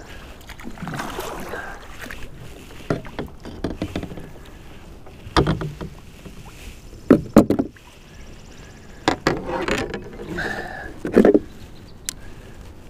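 A hooked northern pike splashing beside a Malibu Stealth 14 sit-on-top kayak as it is landed by hand, with water sloshing and several sharp knocks and clatters on the kayak, the loudest about two thirds of the way through.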